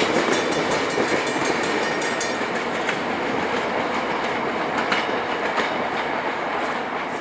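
VIA Rail passenger train moving away just after its last car has passed: a steady rolling rumble with scattered sharp wheel clicks over the rail joints, slowly fading.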